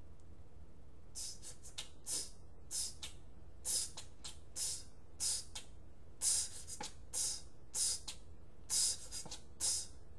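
A man whispering under his breath: a string of short hissing sibilants, one or two a second, over a low steady hum.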